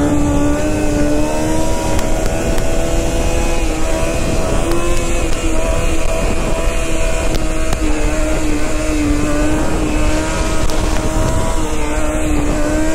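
Dirt bike engine running at a steady cruising speed, heard from the rider's seat, its pitch holding nearly level with a few slight dips as the throttle eases. Wind noise rushes over the microphone underneath.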